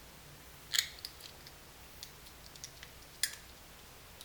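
Small plastic safety label being peeled off a CR2032 coin battery: two short crackles about a second apart and near the end, with a few faint ticks between.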